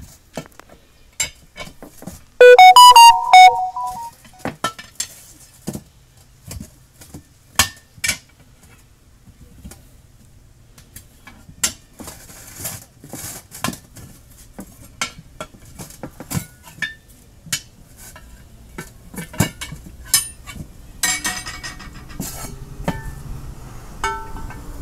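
Steel tyre irons clinking and knocking against an alloy wheel rim as a car tyre is levered off by hand. About two and a half seconds in, one very loud clang rings on for over a second.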